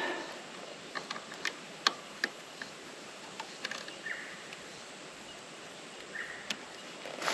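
Quiet outdoor background with scattered light clicks and ticks, irregular and sharp, and two short faint chirps about four and six seconds in.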